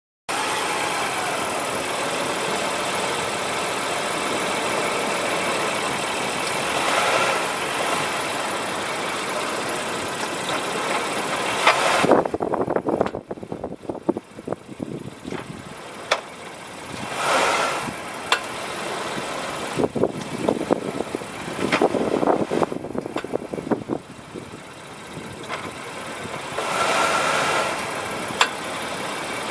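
A car's brakes making noise, heard over steady car and road noise. Three brief swells of brake noise come about ten seconds apart, with a clattering stretch about halfway through.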